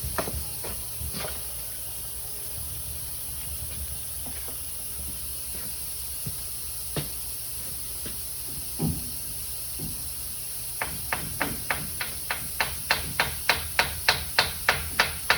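Scattered knocks, then a fast run of about twenty hammer blows, about four a second and growing louder, as a part is driven during suspension and axle work on a pickup truck.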